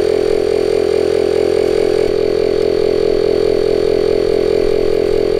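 OutdoorMaster Cachalot 2S electric SUP pump running steadily while inflating a stand-up paddleboard at around 5 PSI, in its harder-working high-pressure stage: a loud, even drone with a fast pulsing beat.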